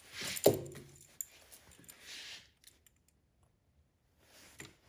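Small metal electrical hardware being handled: a sharp metallic clink with brief ringing about half a second in, then rustling, and a faint click near the end.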